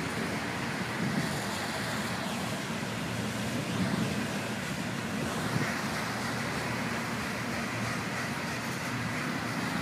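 Union Pacific freight train cars rolling past on elevated track: a steady low rumble of wheels on rail. Road traffic passes on the street below.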